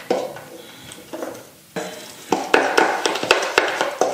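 Plastic scoop and tint brush clicking and scraping in a small plastic tub while hair bleach powder is mixed. Quiet at first, then a quick run of clicks and scrapes from about two seconds in.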